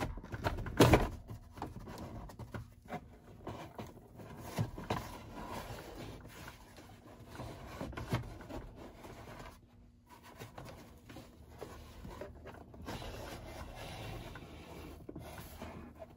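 Original cardboard (fibreboard) glove box of a 1976 Ford truck being flexed and worked out of the dash opening: irregular rubbing, crinkling and scraping against the dash, with a sharp knock about a second in.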